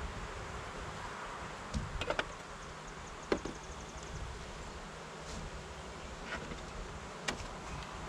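Honeybees buzzing around an open hive in a steady hum, with a few sharp clicks and knocks from handling the hive.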